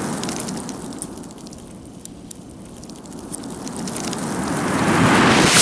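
The long rolling echo of a .50 BMG rifle shot from a Serbu RN50 dies away over the first couple of seconds. Then a rushing noise swells steadily louder and cuts off abruptly at the end.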